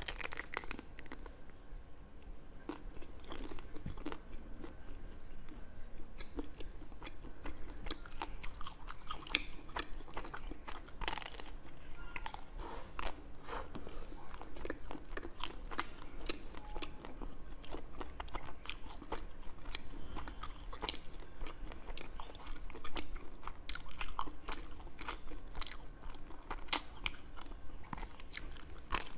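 Close-up biting and chewing of hard frozen purple balls: a continuous run of sharp, irregular crunches and crackles as the frozen shell breaks up in the mouth.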